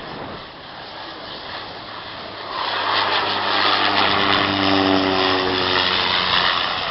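Single-engine propeller plane flying low overhead, coming in to land. Its engine and propeller sound swells to its loudest about three seconds in and drops in pitch as it passes, then fades.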